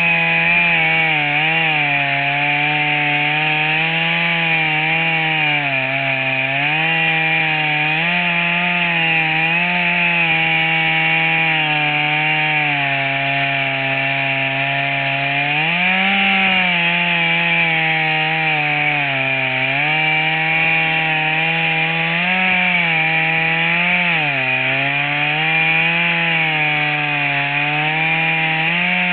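A chainsaw in a homemade chainsaw mill runs flat out while ripping lengthwise through a log to cut roughly 6 cm planks. The engine note wavers, dipping and recovering every few seconds as the cut loads the saw.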